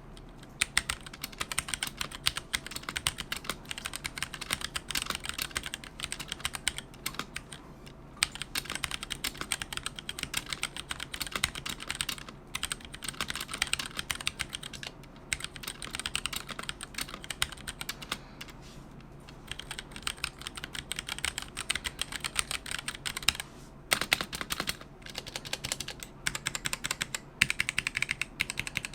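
Typing sound test on a Womier K66 mechanical keyboard with Gateron Brown switches: rapid, continuous key clacks with a few brief pauses.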